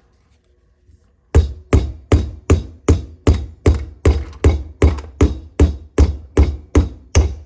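Hammer repeatedly striking an IKEA A19 LED bulb's thick rubberized-plastic globe, about seventeen sharp, evenly spaced blows at roughly two and a half a second, starting about a second in; the blows dent the globe rather than break it.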